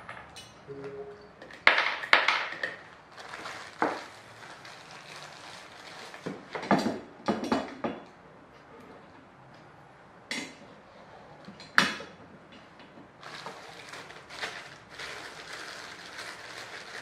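Hard clacks and metallic clinks as caster wheels are handled and pushed into a chrome office-chair star base, about half a dozen sharp knocks spread out. Near the end comes a stretch of crinkly plastic rustling as a small parts bag is opened.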